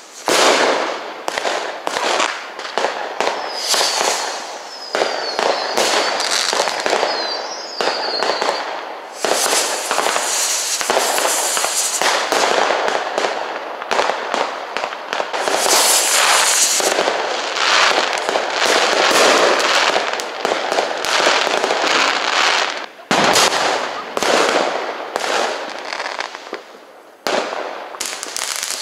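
Many consumer fireworks and firecrackers going off at once in a continuous crackle of bangs and pops. A few short, high falling whistles come a few seconds in.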